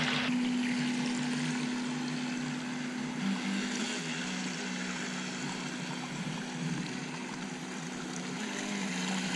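Brushless electric motor of a 3D-printed RC jet boat running under power: a steady hum with a wavering lower tone, over the wash of water.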